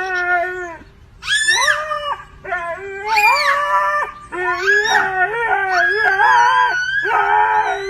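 A dog howling in a series of drawn-out calls that bend up and down in pitch, with short breaks between them.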